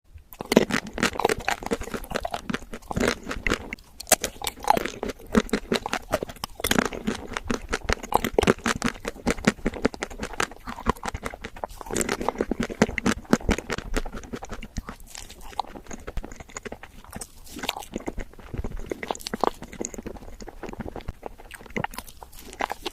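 Close-miked eating of desserts (ice cream, mochi and chocolate): repeated bites with crisp crunches and chewing, a dense run of irregular crackles and clicks.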